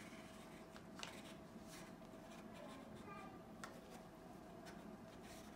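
Faint rustling and scratching of a cat biting and pawing at a paper tiger mask and its elastic band, with a few light clicks scattered through.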